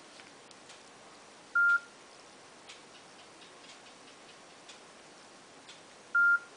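Nokia 5800 XpressMusic phone giving two short single-pitch beeps, about four and a half seconds apart, the second as its screen and keys lock. Faint ticking about once a second underneath.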